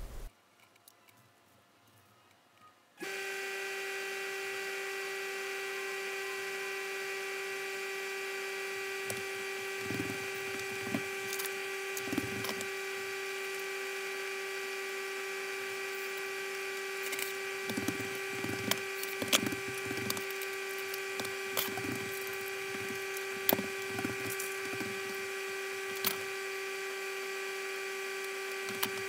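A steady electrical hum with a clear low tone sets in abruptly about three seconds in, after near silence. Over it come scattered small clicks and taps of hands and tools working the wiring of a ceiling light fixture.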